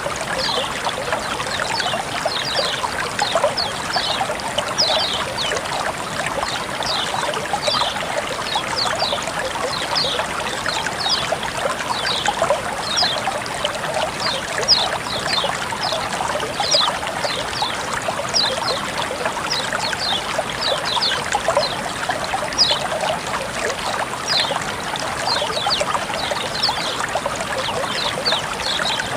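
Running water flowing and trickling steadily, with a quick, irregular patter of short high splashy notes over it.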